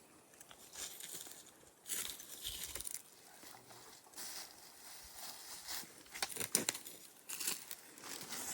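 Intermittent rustling and crunching in a few short bursts, loudest a little after the middle and near the end.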